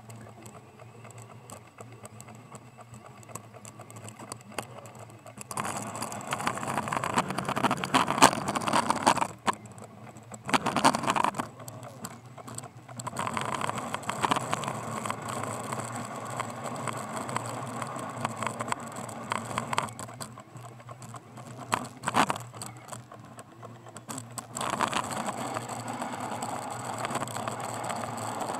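Subaru Sambar mini truck running while its Fisher Trailblazer V-plow pushes snow, with a steady engine hum under rattling and scraping. It is quieter for the first five seconds, then louder, with a few sharp loud knocks or scrapes about eight, eleven and twenty-two seconds in.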